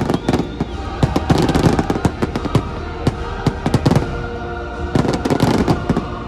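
Fireworks going off in rapid volleys of sharp bangs, densest about a second in and again near the end, over loud show music played through the park's speakers.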